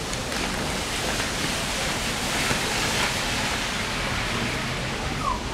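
Steady rain falling: a dense, even hiss.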